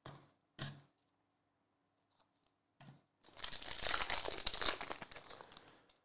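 Foil wrapper of a Select basketball hobby card pack being torn open: a dense, crinkly tearing and rustling lasting about two and a half seconds, after a few short rustles of the pack being picked up.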